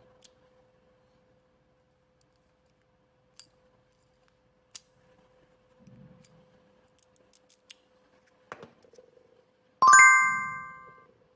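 A few small sharp clicks of a key working in a lock, over a faint steady hum. About ten seconds in comes a loud, bright bell-like ding that rings out over about a second.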